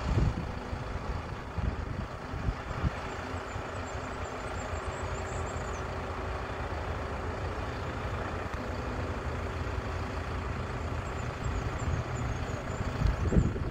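Mobile crane's diesel engine running steadily while the crane lifts a large stainless-steel tank. Gusts of wind buffet the microphone at the start and again near the end.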